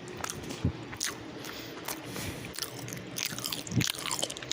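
A person chewing a mouthful of lo mein noodles close to the microphone, with irregular wet mouth clicks and smacks.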